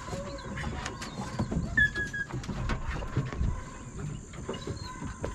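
Deer hounds baying in the distance as they run a deer's scent, over a low rumble on the microphone. Short chirps come and go, and one brief higher call is the loudest moment about two seconds in.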